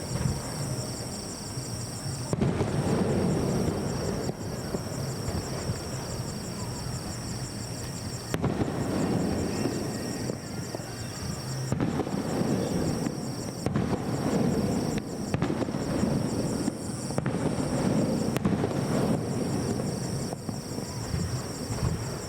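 Aerial fireworks shells bursting, a series of booms every few seconds over a continuous low rumble.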